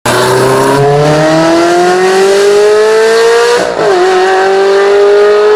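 Car engine accelerating hard, its pitch climbing steadily, dropping briefly at a gear change about three and a half seconds in, then climbing again.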